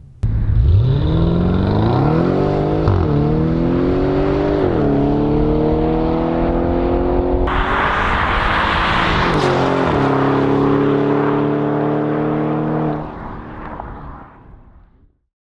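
Audi 4.0T twin-turbo V8 through an ECS valved stainless exhaust, accelerating hard. Its note climbs and drops back at upshifts about three, five and ten seconds in, turns suddenly hissier about halfway, then holds a steady note before fading away near the end.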